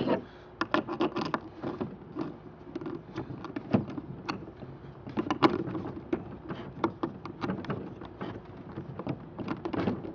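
Irregular clicks, knocks and rattles of hand-adjusting a skateboard wheel on its truck axle, tightening the axle nut to set the wheel's play.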